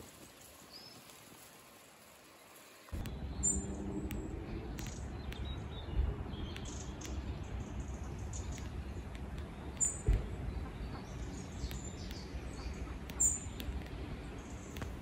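Outdoor ambience of birds giving scattered short, high chirps. About three seconds in, the sound jumps from quiet to louder as a steady low rumble starts abruptly.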